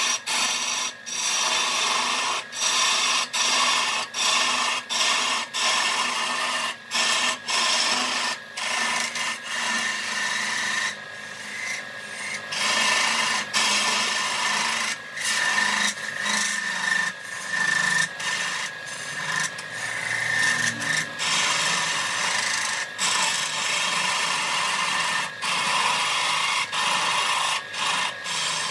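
A turning tool or abrasive scraping against wood spinning on a lathe: a steady rasping hiss with a faint steady whine, broken by many short gaps.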